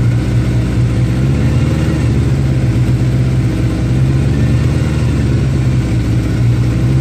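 Kawasaki GT550's air-cooled inline-four engine idling steadily.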